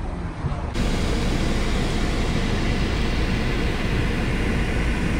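Steady road and wind noise of a car driving, heard from the car; the sound changes abruptly about a second in.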